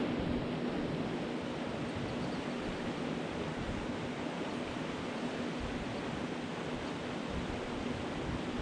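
Steady rush of a small mountain creek running over a shallow riffle.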